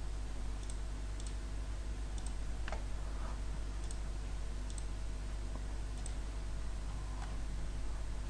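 Computer mouse clicking, single clicks roughly once a second, over a steady low electrical hum and hiss.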